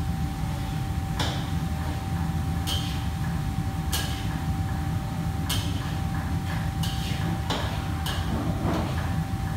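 Commercial kitchen ambience: a steady machinery hum with a constant thin whine, and short clinks and clatters of containers and utensils about every second or so.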